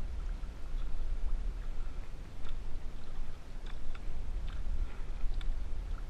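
Paddles stroking through calm water beside an outrigger canoe, with faint ticks and drips about once a second, over a steady low rumble of wind on the microphone.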